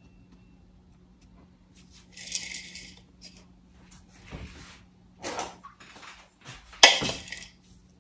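Several short rustling and scraping handling noises as Oreo biscuits and crumbs are worked onto a cheesecake by hand, with a sharper clatter about seven seconds in. A faint steady low hum runs underneath.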